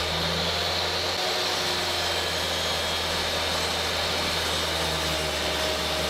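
Table saw running steadily while a lacewood board is pushed through the blade, the blade taking only a thin shaving off the board's edge.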